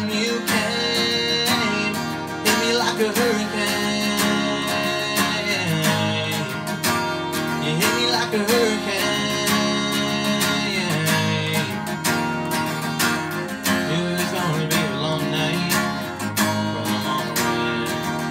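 Acoustic guitar strummed in a steady rhythm, with a young man singing a country song over it.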